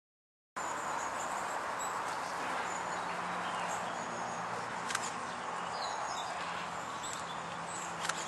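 Outdoor ambience that cuts in abruptly about half a second in: a steady background hiss with faint, short bird chirps scattered through it and a couple of light clicks.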